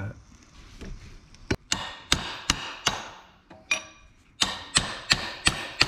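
Hammer striking a cold chisel set against a steel collar on a stainless steel motor shaft, to knock the collar off. About ten sharp, ringing metal-on-metal blows begin about a second and a half in. They come roughly three a second in two runs, with a short pause near the middle.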